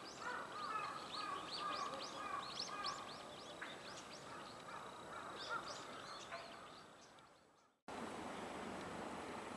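Wild birds calling: a dense run of short high chirps over repeated lower call notes, fading out about three-quarters of the way through. After a sudden break comes a steady outdoor hiss with a faint call.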